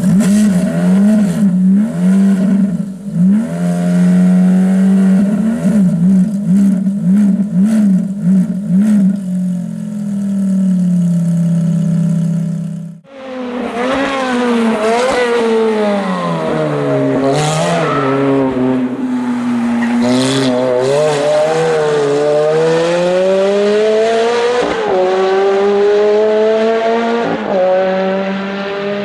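Ferrari F430's V8 with a straight-pipe exhaust, first standing and revved in short repeated blips, then, after a sudden change about halfway through, driven hard: the revs climb in long sweeps and drop at each gear change, fading near the end.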